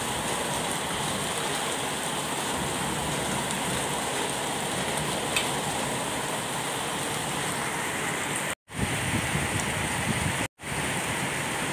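Heavy rain pouring down, a steady even hiss. The sound drops out completely for a moment twice near the end.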